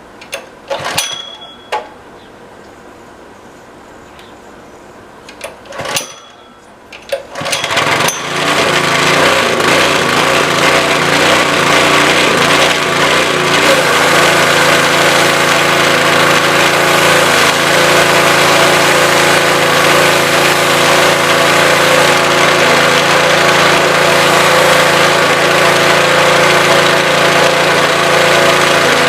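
Honda GX200 single-cylinder engine on a pressure washer being pull-started: brief bursts about a second in and again around six to seven seconds in, then it catches about eight seconds in and runs steadily.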